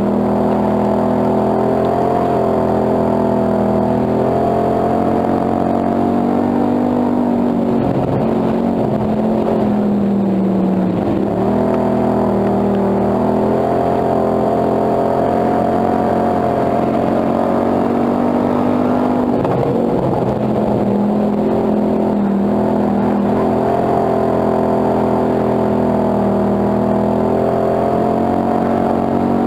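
Hobby stock dirt-track race car's engine at high revs, heard from inside the cockpit. The engine note drops twice as the driver lifts for the corners, then climbs again on the straights.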